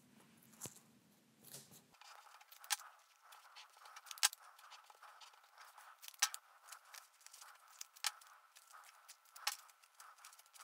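Faint paper handling: cardstock cutouts slid and pressed into place on a card, with a few sharp ticks and light crackle. Masking tape is pulled from its roll partway through.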